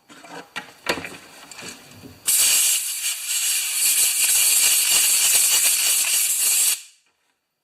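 A loud, steady spraying hiss of about four and a half seconds, starting a little over two seconds in and cutting off sharply near the end. Before it come a few light handling clicks and knocks.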